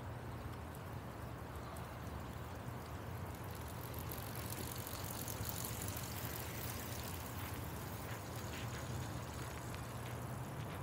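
Steady waterfront city ambience: a low hum of distant traffic under an even wash of noise, with a brighter hiss swelling through the middle and fading near the end.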